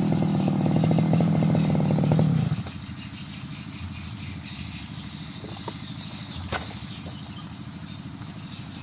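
Backpack brush cutter's small engine running at speed, then slowing and dropping to a quieter idle about two and a half seconds in. Insects chirp steadily throughout.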